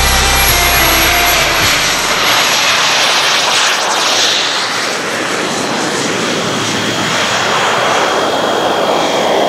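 Miniature turbine engine of a radio-controlled model jet at high power during its takeoff run and climb-out: a steady jet rush with a thin high whine, swelling about four seconds in as the model passes close.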